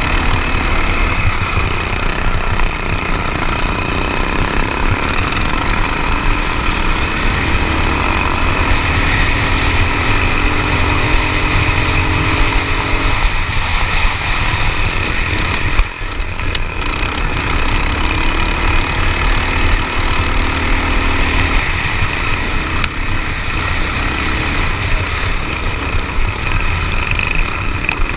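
Racing ride-on lawn mower's engine running hard, heard from on board the mower with a heavy rumble, the engine note rising and falling with the throttle. About halfway through comes a sudden knock, and the sound dips briefly.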